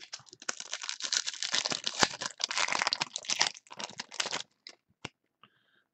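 Foil wrapper of a trading card pack being crinkled and torn open: a dense crackle lasting about four seconds, then a few light clicks.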